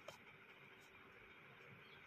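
Near silence: faint room tone, with one soft click just after the start.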